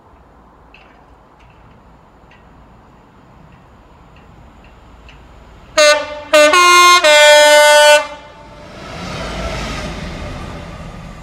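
Diesel freight locomotive's two-tone horn sounding about six seconds in: two short blasts, then a longer one that steps between its two pitches. The locomotive then passes, its rumble swelling and fading away.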